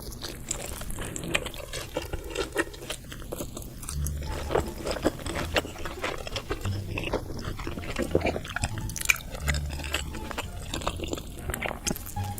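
Close-up chewing and biting of food, a steady run of small crackling clicks and mouth noises, with a few low dull thuds along the way.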